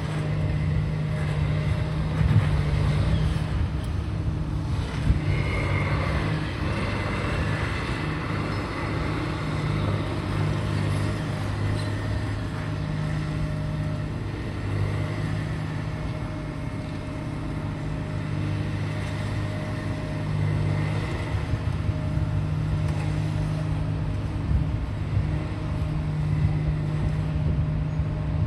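A large engine running steadily with a low, even hum, with a few faint passing noises over it.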